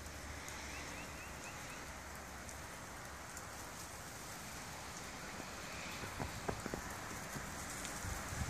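Melting snow dripping and sifting down from snow-laden pine branches: a steady, rain-like patter of drops. A few soft thumps land about six seconds in and again near the end.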